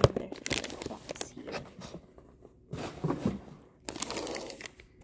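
Clear plastic packaging crinkling and rustling as it is handled, in three bursts with sharp crackles.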